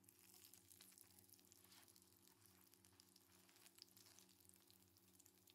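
Faint sizzling of food frying, a steady hiss with many scattered crackles.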